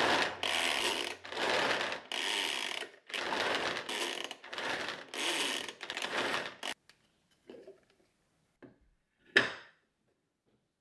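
A small hand-worked mechanism makes about eight quick, even whirring strokes one after another, then stops. A few light knocks follow, then one sharp thump near the end.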